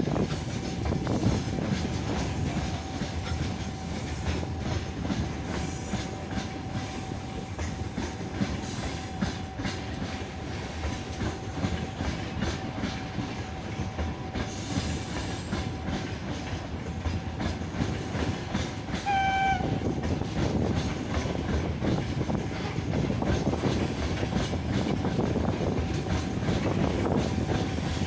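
Freight train rolling past, its wheels clattering steadily over the rail joints. About two-thirds of the way in comes one short, high toot.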